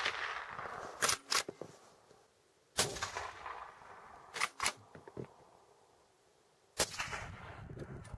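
Rifle shots from a Blaser hunting rifle fired over a chronograph, two about four seconds apart, each with a long echoing tail. About a second and a half after each shot come two short, sharp clicks.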